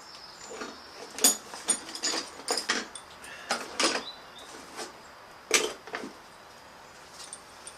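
Irregular sharp clinks and knocks, about a dozen over six seconds, from metal parts and tools being handled while a motorcycle's rear mudguard is fitted and bolted on.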